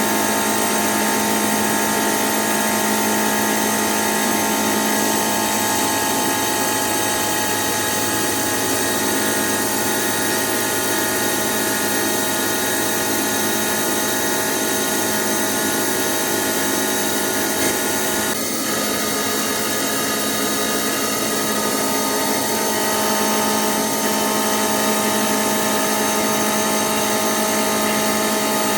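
Hitachi Seiki VM50 vertical machining centre milling a steel mold with a 12 mm end mill spinning at 2800 rpm: a steady cutting noise with a constant whine. A brief change in the cut about two-thirds of the way through.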